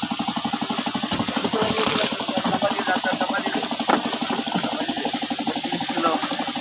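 An engine idling with a fast, even knock, steady throughout, with voices faintly over it.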